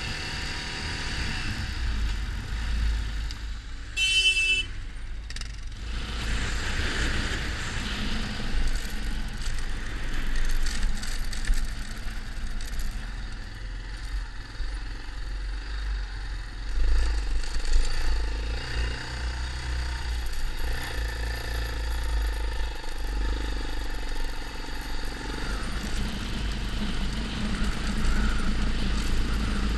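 Yamaha XT 600 single-cylinder motorcycle running on the move, a steady engine-and-ride noise with a strong low rumble. A brief high-pitched tone sounds about four seconds in.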